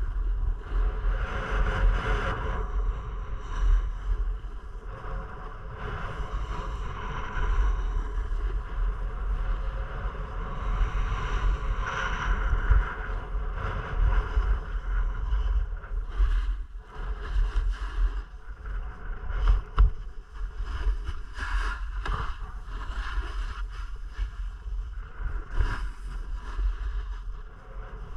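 Skis hissing and scraping over snow under a heavy, buffeting rumble of wind on the action camera's microphone. In the second half, sharper scrapes break in.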